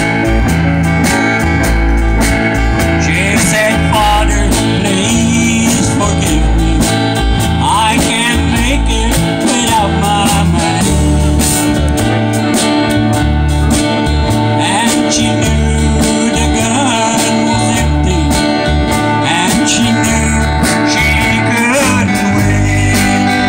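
Live country band playing with a steady beat: acoustic rhythm guitar, electric lead guitar, electric bass and drum kit.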